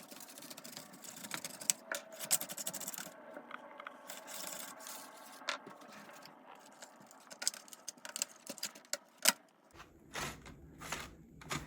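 Rubbing and scraping on the opened plastic laptop as its dusty insides are cleaned, broken by scattered sharp clicks and knocks.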